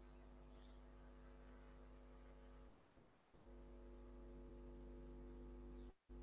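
Near silence apart from a faint, steady electrical mains hum with a stack of evenly spaced overtones. It drops out briefly about three seconds in.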